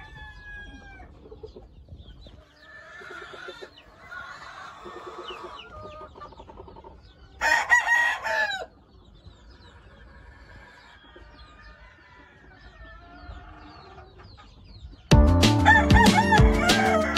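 A rooster crows once, loud, about seven seconds in, for a little over a second, with quieter calls from other birds in the background. Music starts suddenly near the end.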